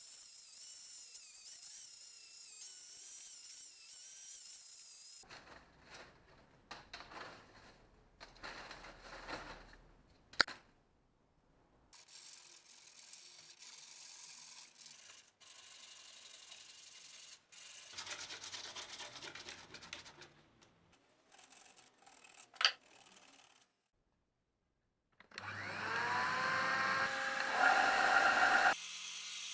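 Angle grinder running with a high whine as it grinds a steel axe head. Then come short bursts of workshop noise with a sharp click. Near the end a belt and disc sander's motor spins up, its whine rising in pitch.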